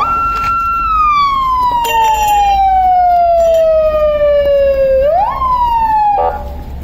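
Police siren wailing: it climbs quickly, holds, then slowly falls for about four seconds, sweeps up once more near the end and cuts off, followed by a brief crackle.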